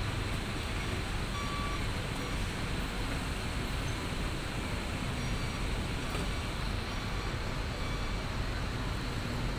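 Steady low rumble of vehicle engines idling, with general road-traffic noise.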